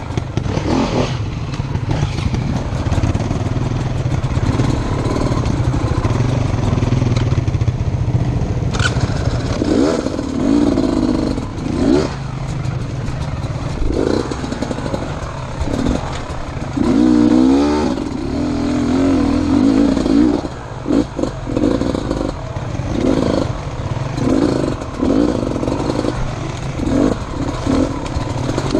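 Enduro motorcycle being ridden, its engine revving up and down again and again as the throttle opens and closes, with a few sharp knocks.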